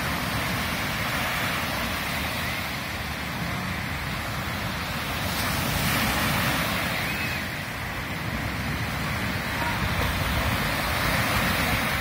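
Baltic Sea surf breaking and washing up a sandy beach, a steady rush of waves that swells louder about six seconds in and again near the end.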